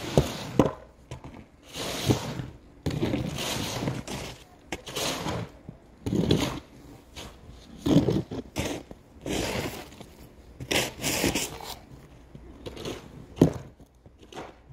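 Snow shovels scraping and pushing through fresh snow over the road surface in repeated, irregular strokes, with a few sharp knocks of a blade.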